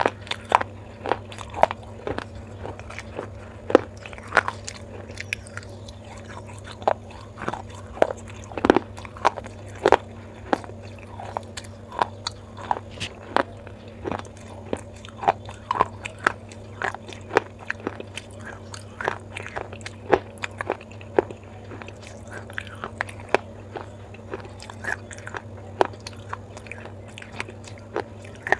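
Baked clay pot being chewed: rapid, irregular sharp crunches of fired clay breaking between the teeth, several a second, over a steady low hum.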